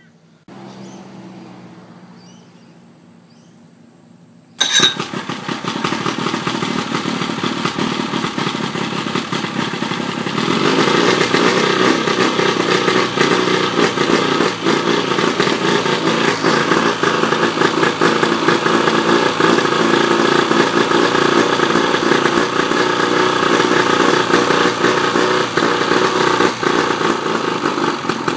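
Johnson 55 hp Sea Horse two-stroke outboard starting: the engine catches suddenly about five seconds in, then runs steadily, louder from about ten seconds in.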